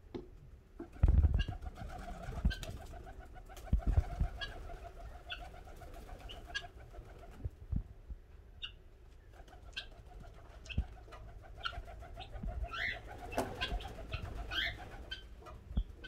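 Pigeons cooing in two long rolling, rapidly pulsing phrases, with short high chirps from small birds scattered through. A few loud low thumps, the loudest about a second in and near four seconds.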